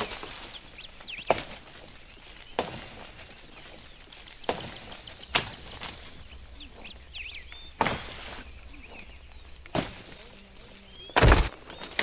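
Chopping blows into a tree trunk, about eight hard, separate strikes at an uneven pace, the last one the loudest and deepest, with birds chirping faintly between.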